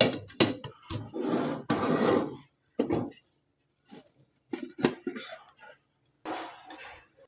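Cookware and a utensil clattering and clinking as an omelette is flipped and put back on a tawa: several sharp knocks with scraping in between.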